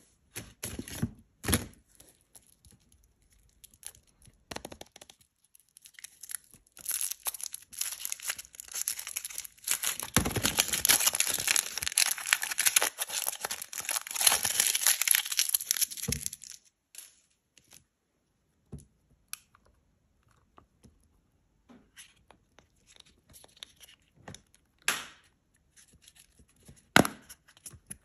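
Aluminium foil wrapper of a Kinder Surprise chocolate egg being peeled off by hand, crinkling and tearing for about ten seconds in the middle, after a few taps at the start. Scattered small clicks follow, and near the end a sharp click as the yellow plastic toy capsule snaps open.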